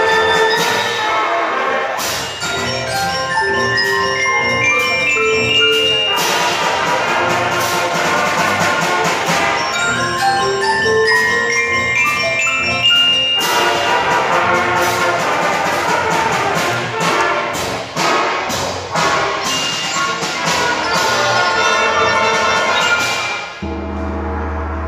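Beginning concert band playing with mallet percussion (xylophones and bells) featured over brass and woodwinds. Two quick rising runs of notes come in the first half, and the piece closes on a held low chord near the end.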